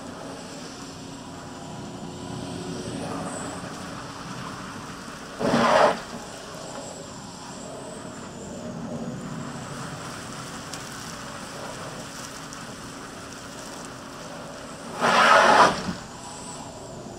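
Insulation-removal vacuum hose pulling air and loose pink fibreglass insulation, a steady rushing, with two short, much louder rushes about five and fifteen seconds in as the hose takes in clumps of insulation.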